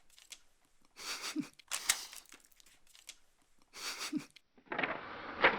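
A person sniffing sharply through the nose three times, a second or two apart, snorting ground black pepper up the nose to bring on a sneeze. Near the end comes a longer, rougher rush of breath that peaks sharply.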